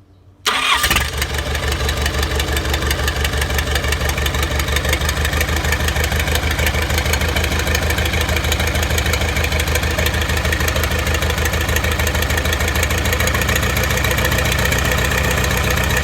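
Excavator's diesel engine starting about half a second in, then idling steadily with a rapid, even chugging pulse.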